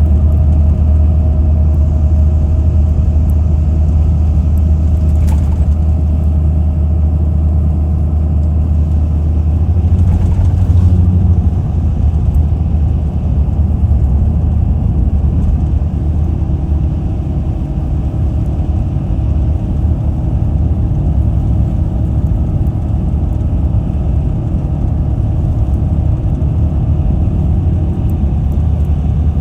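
Steady low rumble of a car driving, with engine and road noise and no clear changes.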